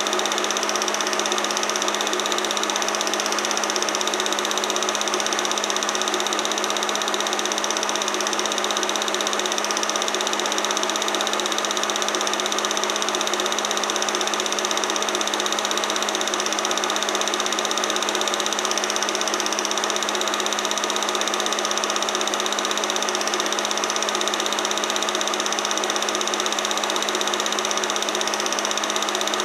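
Film projector running: a steady mechanical whir with a constant hum and hiss that does not change.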